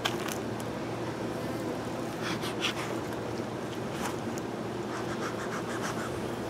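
Metal bee smoker being picked up and handled, with scraping and clicks, then its bellows squeezed in several quick puffs near the end, over a steady low hum.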